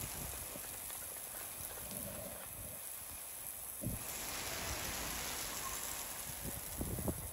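Steady rain hissing on a railway platform and track, getting louder about four seconds in, with a few short knocks near the middle and a cluster of them near the end.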